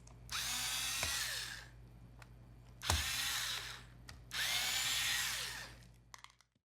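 Small electric screwdriver backing out the three battery screws of a Dell 3100 Chromebook. It runs in three whirring spells of about a second each, one per screw, with short pauses and a click or two between them.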